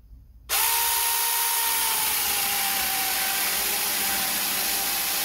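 Cordless 18 V mini chainsaw starting about half a second in and running steadily as it saws through a small log of very soft wood, cutting easily without pulling; a steady whine that settles slightly lower soon after it starts.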